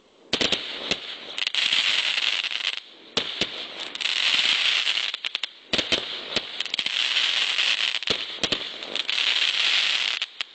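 Fireworks going off: many sharp cracks and pops with three long runs of dense crackling, like crackling stars or firecracker strings.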